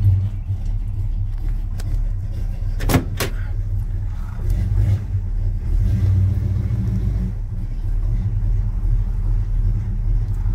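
1984 Chevy C10's 350 small-block V8 running with a steady low rumble, just after being started, heard from inside the cab. One sharp click comes about three seconds in.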